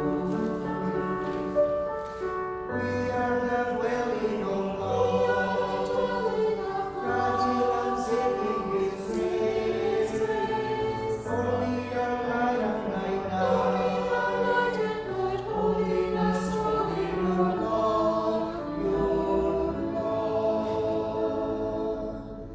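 A group of voices singing a hymn together, with instrumental accompaniment and steady low bass notes.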